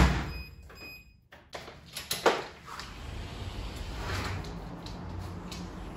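A front-loading washing machine door shuts with a loud thump, followed by two short electronic beeps from its control panel. Then a latch clicks and a sliding glass balcony door is slid open, with a low steady rumble behind it.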